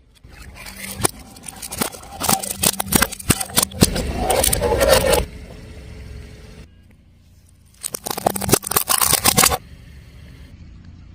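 Brittle objects cracking and crunching under a car tyre, in two bursts of many sharp snaps. The first builds over about five seconds and is loudest near its end; the second comes after a short lull.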